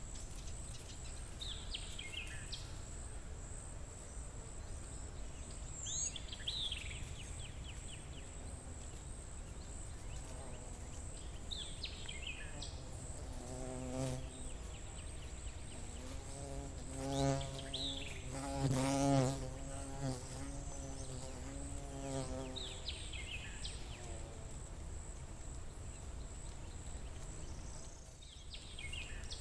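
A flying insect, fly or bee, buzzing close by: the buzz wavers in pitch and loudness, starting about a third of the way in, loudest around the middle and fading near two-thirds. Under it runs a steady high insect trill, and a bird repeats a short falling call every few seconds.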